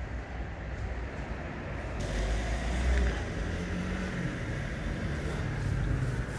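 Road traffic: a steady street rumble with a vehicle going by, loudest about three seconds in.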